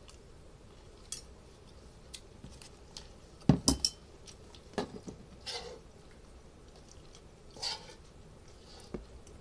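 Spoon and plate clinking in scattered single clicks, with a louder clatter of several knocks about three and a half seconds in as the plate is set down.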